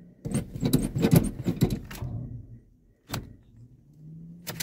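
Keys jangling and clicking at the ignition of a 1978 Chevy K30 for about two seconds, then two single sharp clicks. A faint steady low hum, the cab's blower fan, comes back in the last second.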